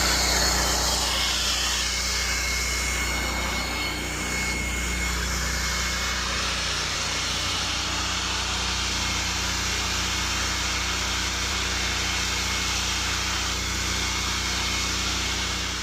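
An engine running steadily at a constant speed, with a low hum under a hiss.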